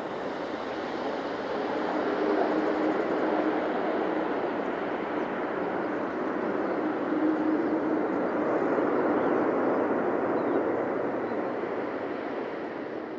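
Jet engine roar of an Airbus A330-300 with GE CF6-80E1 turbofans rolling out after touchdown. The roar swells about two seconds in, holds, then eases off near the end as the aircraft slows.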